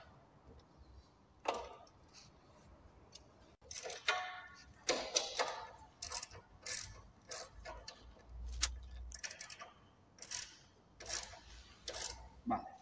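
Irregular metallic clicks, knocks and light clinks as a wooden bench's metal leg frame, its bolts and a ratchet wrench are handled.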